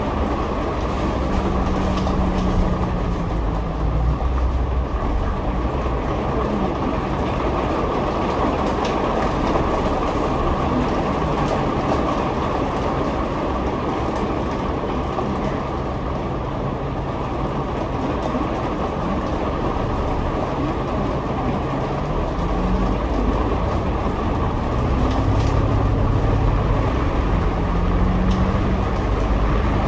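Double-decker bus heard from inside on the upper deck: a steady heavy drone of engine and road noise, with the engine note rising and falling as the bus pulls away and changes speed, about a second in and again near the end.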